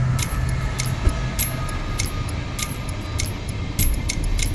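Light metallic jingling in step with walking footsteps, about two a second, over the low rumble of a train pulling into the station.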